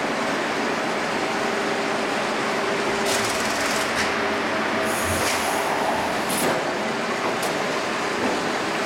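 CNC steel sheet leveling and shearing line running: a steady machine hum with several steady tones, and a few short bursts of high hiss partway through.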